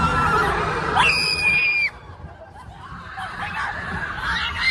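Riders screaming on the Matterhorn Bobsleds roller coaster: a long held scream, then a higher rising scream about a second in, over a low rumble. The sound drops abruptly about two seconds in, leaving quieter wavering cries and a fresh shriek near the end.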